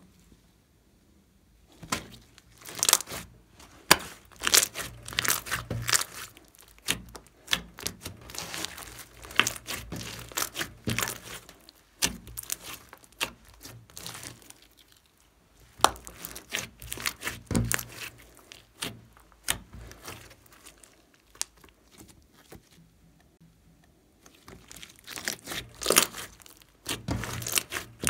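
Hands kneading, stretching and pressing a large lump of pink slime mixed with small foam beads: spells of sharp, wet crackling and popping, broken by a few short quiet pauses.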